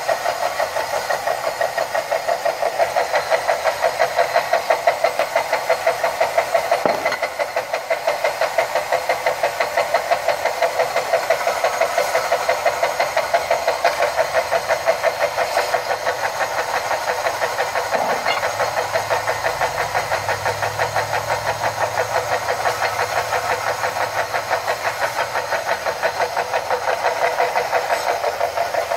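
Wet belt sanders running, grinding the cut rims of glass beer bottles held against the water-fed belts. A steady grinding noise with a fast, even pulsing, and a couple of brief knocks.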